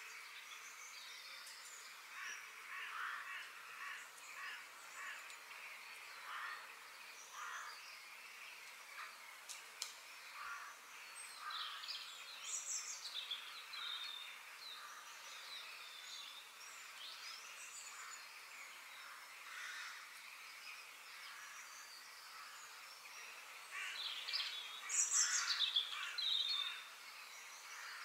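Faint birdsong ambience: small birds chirping and calling on and off, with a louder flurry of calls near the end.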